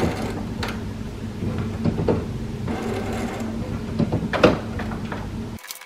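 HP Envy Inspire 7955e inkjet printer running a print job: a steady mechanical hum with repeated clicks and whirring swells as the paper feeds and the print mechanism moves. It cuts off abruptly near the end.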